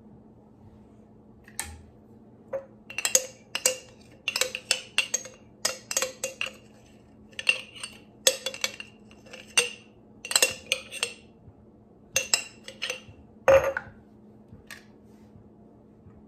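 Clusters of sharp clinks and taps, several a second, as a spatula scoops solid coconut oil from a glass jar and knocks it into a skillet, with one louder knock near the end.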